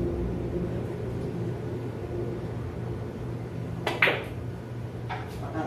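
A pool shot: one sharp click of cue and balls about four seconds in, with a brief ring, over a steady low hum.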